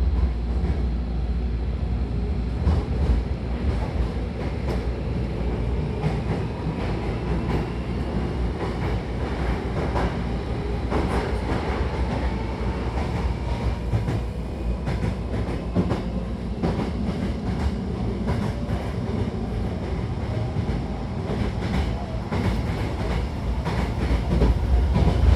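Hankyu electric train running on the Takarazuka Line, a steady low rumble with repeated clicks of the wheels over rail joints and a faint whine that slowly rises in pitch in the first half.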